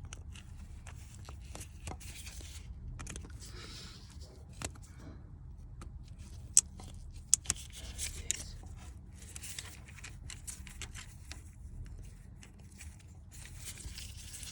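A screwdriver scraping and prising at a plastic coolant-hose clip, in repeated scraping spells, with a few sharp clicks between about six and eight seconds in. A steady low rumble runs underneath.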